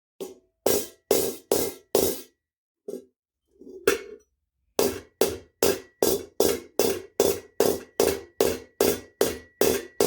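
Hammer blows on steel leg armour held over a ball stake, knocking out a dent. A few spaced blows, a short pause, then a steady run of about two to three blows a second, with a faint ringing tone from the steel.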